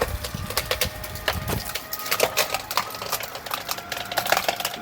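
The hinge wood of a tree being felled, cracking and splintering in many irregular sharp crackles as the tree rotates over and the fibres tear.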